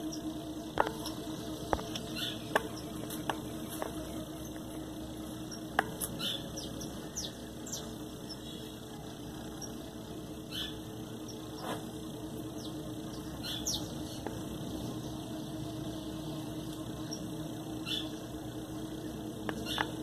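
Hands firming potting soil around a succulent in a small terracotta pot: light handling noises with a few sharp taps, the loudest near the start, over a steady low hum. Short high chirps come and go throughout.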